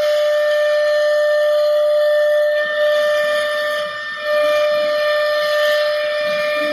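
Funing four-head CNC woodworking machine running, its spindle giving a steady high whine over a hiss. The whine drops out briefly about four seconds in, then returns.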